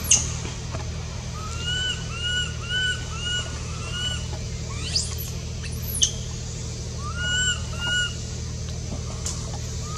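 Short, arched high-pitched calls repeated in runs of three or four, with a few sharp upward-sweeping whistles, over a steady low hum.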